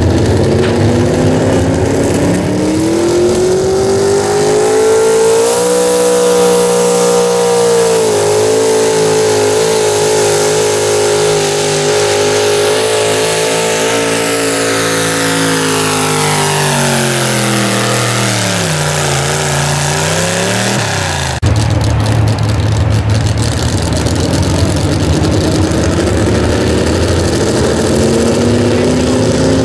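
Pro stock two-wheel-drive mini truck engine at full throttle pulling a weight-transfer sled. The pitch climbs over the first few seconds, holds high, then sinks and dies away about twenty seconds in as the pull ends. After a sudden break, another truck's engine revs, rising in pitch near the end.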